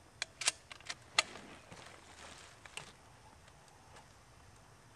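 A quick run of sharp clicks and knocks, about six in the first second or so, then a faint rustle and one more click near three seconds in.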